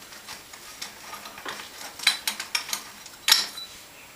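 Light metallic clicks and clinks of a 13 mm wrench working the locknut out of a Wellgo platform pedal's axle, with a couple of sharper clinks about two and three seconds in.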